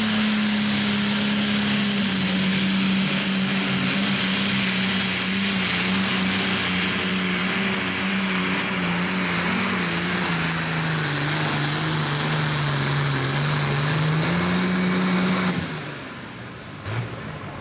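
Light limited super stock pulling tractor's turbocharged diesel engine running flat out as it pulls the sled. Its pitch sags for a few seconds past the middle, climbs back, and then cuts off suddenly as the throttle is closed at the end of the pull.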